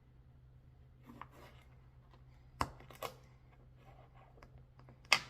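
Kitchen handling noises while food is being prepared: a few sharp clicks and knocks, the loudest near the end.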